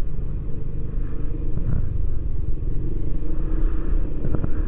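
Yamaha X-Max 250 scooter being ridden down a steep mountain road: a steady low rumble of its engine and the ride.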